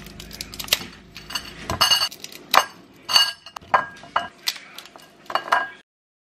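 A block of dry instant ramen noodles is broken up by hand over a ceramic bowl, and a metal spoon works in the bowl: a run of sharp clicks and clinks of pieces and spoon against the bowl. The sound cuts off suddenly near the end.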